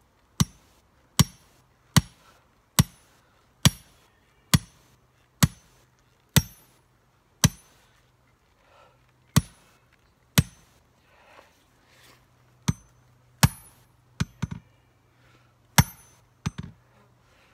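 Steady hammer blows on top of a metal electric-fence ground rod, roughly one strike a second with a short pause near the middle, each blow a sharp clank with a slight metallic ring, as the rod is driven slowly into rocky ground.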